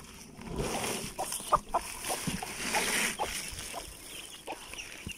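Rustling and handling noise of cloth and stuffing in a nesting box as a broody hen and her chicks are taken out, with a string of short, low clucks from the hen.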